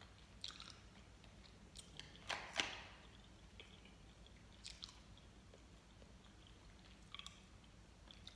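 Faint, quiet chewing of a soft gummy candy, with a few brief soft mouth clicks and smacks scattered through.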